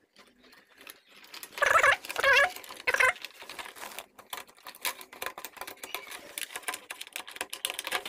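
Quick light clicks and rattles of plastic parts being handled as a circuit board is fitted into a water purifier's plastic housing. About two seconds in, a few high, wavering, voice-like calls come through loudly.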